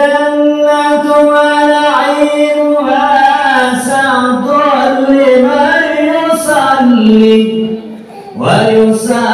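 A man chanting a salawat, the Arabic blessing on the Prophet Muhammad, unaccompanied into a microphone. It is one long phrase of held, ornamented notes that drops lower near the end, breaks off about eight seconds in, and a new phrase starts just before the end.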